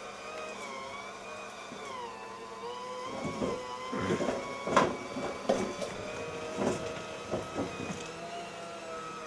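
Electric hand mixer running, beating cream cheese and sugar into cheesecake filling: a steady motor whine whose pitch sags briefly about two seconds in. A few short knocks come in the middle.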